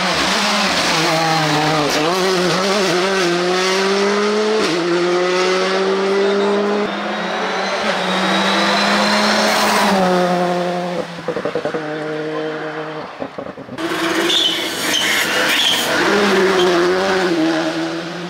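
Rally cars driven flat out past the spectators, their engines revving hard and climbing through the gears with clear drops in pitch at each shift. After about 11 seconds a car lifts off with a burst of popping and crackling, and then another car comes in revving hard.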